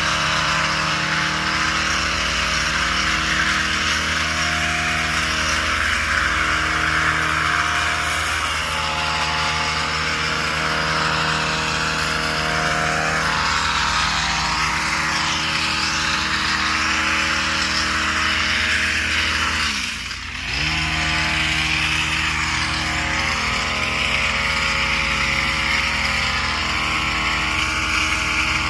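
Small petrol engine of a yard tool running steadily at high throttle, with a strong rushing hiss. About two-thirds of the way through it drops briefly, as if the throttle is let off, then comes straight back up.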